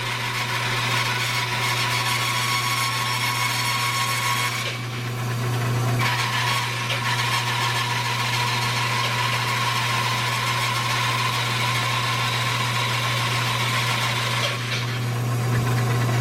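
Bandsaw running with a steady low motor hum while its blade resaws a green maple log. A continuous hiss of cutting thins out briefly about five seconds in and again near the end.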